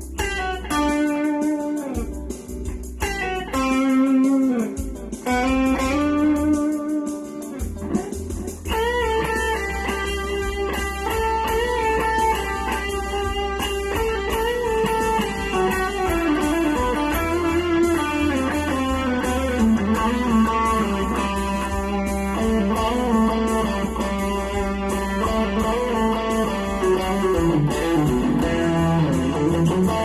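Ibanez RG350EXZ electric guitar played through a Korg AX3G multi-effects unit and a Fernandes FA-10X amp, picking single-note lead lines over a backing track. Sustained notes come with short pauses at first, then about eight seconds in the backing track's bass comes in and the playing becomes a continuous run of notes.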